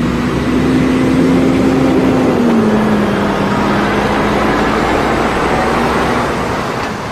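Lorry with a drawbar trailer driving through a slow turn: a steady diesel engine hum with road noise. The engine note drops a little about two and a half seconds in, and the sound eases slightly near the end.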